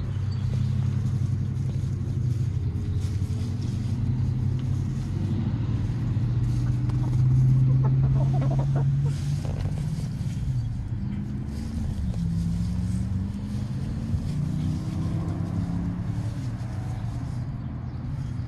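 A low engine hum, steady at first and loudest about eight seconds in, then wavering up and down in pitch.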